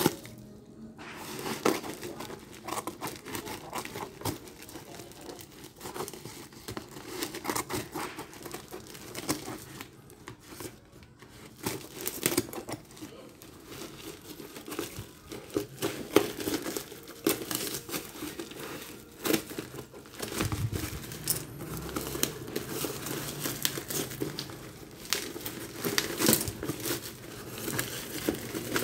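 Plastic parcel wrapping crinkling and tearing in irregular rustles as it is cut and pulled open, with bubble wrap rustling near the end.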